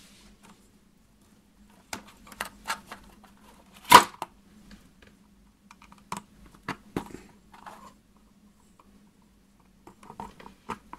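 Plastic stepper-motor cable connector being pulled off and pushed back onto the pin header of a stepper driver board, with wires handled around it: a string of small clicks and rattles, the sharpest click about four seconds in. The plug is being turned around to reverse the Z motor's direction.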